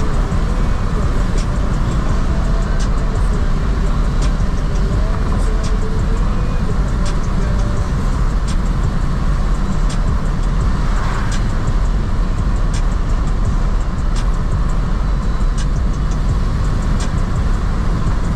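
Ford Mustang EcoBoost driving at speed, heard inside the cabin: a steady rumble of tyres and engine, with faint light ticks about every second and a half.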